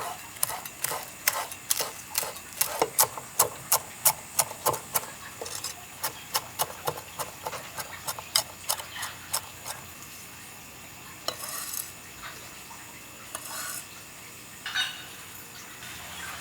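A knife chopping culantro on a cutting board: quick, regular strikes, about three a second, that stop about two-thirds of the way through. A few softer, noisier sounds follow near the end.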